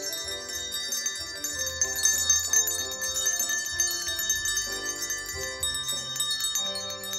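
Many small children's handbells ringing together in a dense, bright jangle over a live band accompaniment with a bass line.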